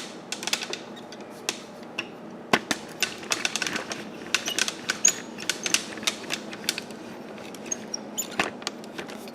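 Irregular clicks, taps and knocks of hard plastic vacuum parts and packaging being handled and set down, busiest about three seconds in.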